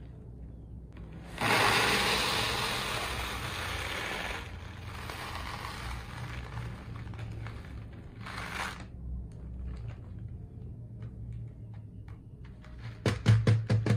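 Plastic beads pouring from a plastic bag into a plastic tub: a loud rattling rush that starts suddenly about a second and a half in and thins out over several seconds, with a second, shorter pour about eight seconds in. Near the end, a quick run of sharp clicks.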